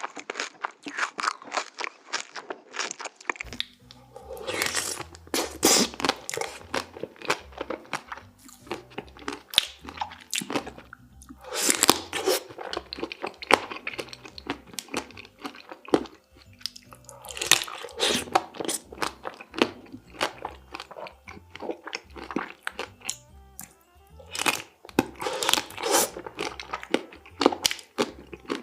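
Close-miked crunching and chewing of chocolate-coated candy ice cream bars: dense crisp bites and crunches, in louder clusters every few seconds.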